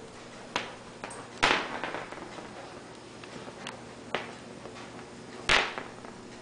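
A cat chewing and batting a small plastic toy on a tile floor: a few sharp clicks and knocks of hard plastic, the loudest about a second and a half in and again near the end, each with a brief rattle after it.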